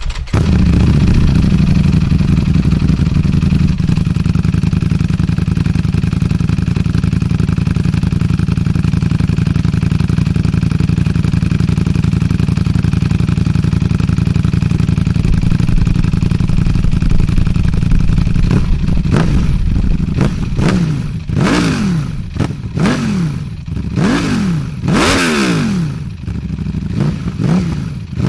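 Ducati Panigale V4 engine running through an aftermarket exhaust, holding a steady fast idle, then from about 19 seconds in blipped repeatedly, the revs rising and falling quickly several times, with sharp cracks between blips.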